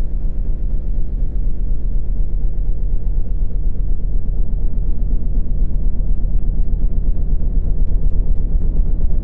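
Loud, steady, deep rumbling noise, strongest in the bass and edging slightly louder: a synthetic water-eject sound meant to shake trapped water out of a phone speaker.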